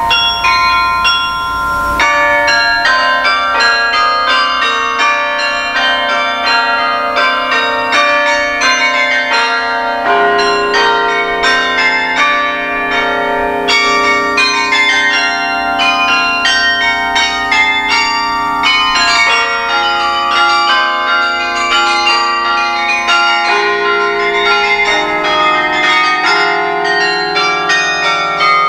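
Carillon bells played from the baton keyboard and pedals: a carol tune of quickly struck bell notes that ring on and overlap. Deeper bass bells join about ten seconds in and hang under the melody.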